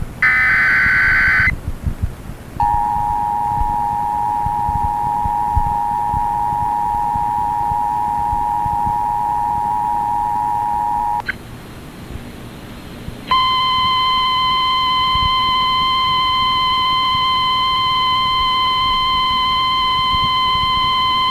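Emergency Alert System activation over FM radio: a short screeching burst of SAME header data, then the two-note EAS attention signal held for about eight and a half seconds. After a brief gap a single steady alert tone comes on and holds for about nine seconds, matching the 1050 Hz NOAA Weather Radio warning alarm.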